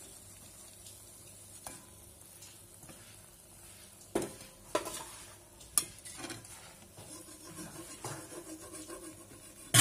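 Deep-frying oil sizzling faintly while golden mathri are scooped out with a slotted metal spatula, which knocks against the pan three times about halfway through and once more loudly near the end.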